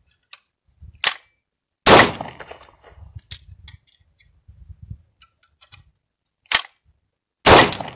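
Two shots from a home-made 3D-printed gun being test-fired, about five and a half seconds apart, each fading out with an echo. Sharp clicks of the gun being handled come before and between them.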